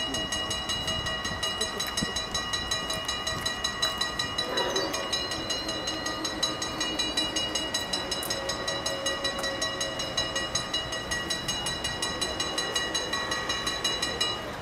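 Two fully mechanical level-crossing bells ringing with rapid, even strikes, warning that the crossing is closing for an approaching train. A lower hum joins about four and a half seconds in as the barrier booms come down. The bells stop abruptly at the end.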